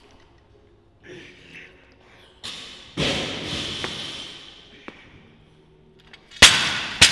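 Clean and jerk with a barbell loaded with bumper plates: the bar rattles as it is caught about three seconds in, then is dropped from overhead near the end and hits the floor with a loud thud, bouncing several times.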